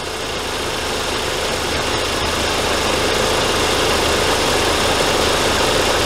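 2004 Volkswagen Passat 1.8 turbo engine idling with the hood open: a steady running noise with a low hum, growing slightly louder, that stops abruptly at the end.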